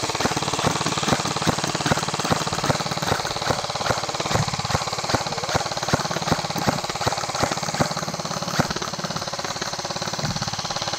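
Electric airsoft rifles firing on full auto, a continuous rapid clatter of shots with a few louder cracks standing out.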